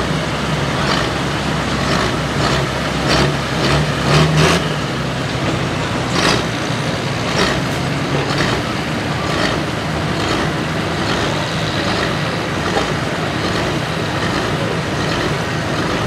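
John Deere pulling tractor's diesel engine running hard under load while dragging a weight-transfer sled, a low steady drone with sharp cracks now and then. The drone is strongest for the first four seconds or so, then eases off as the tractor comes to a stop at the end of its pull.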